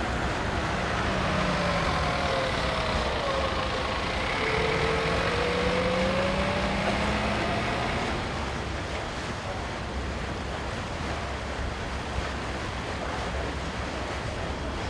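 Ship's deck crane winch running while hoisting a timber load: a motor whine that slides down in pitch and then climbs again, over steady wind and harbour noise. The whine stops about eight seconds in, leaving only the wind and harbour noise.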